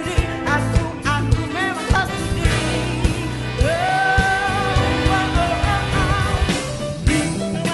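A pop-rock song: a singing voice over bass and drums. The voice holds one long wavering note in the middle.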